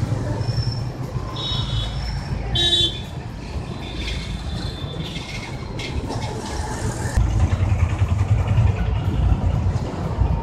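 Busy street traffic running, a steady rumble that swells after about seven seconds, with several short high vehicle-horn toots in the first three seconds.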